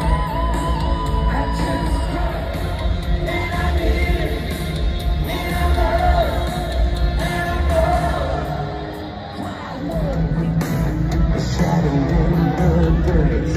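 Live rock band playing a song with a lead singer, heard through a phone's microphone from the stands of a stadium. The sound dips briefly about nine seconds in, then comes back.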